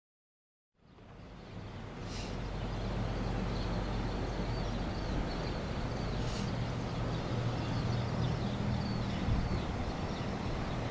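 Outdoor ambience fading in about a second in: a steady low rumble and hum, with small birds chirping faintly high above it.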